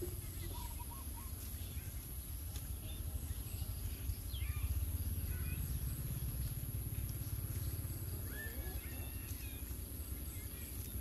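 Outdoor rural ambience: a low steady rumble that swells around the middle, with a few brief bird chirps.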